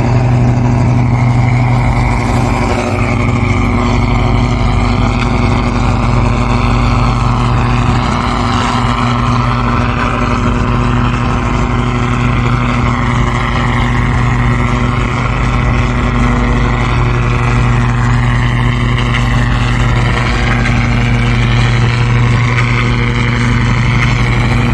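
Cummins KT19 525 hp inline-six marine diesel of a fishing boat running steadily under way: a loud, even drone with a deep hum that does not change in pitch.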